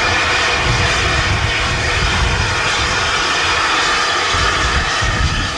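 Steam locomotive at close range giving off a loud, steady hiss of steam, with uneven low rumbling beneath it.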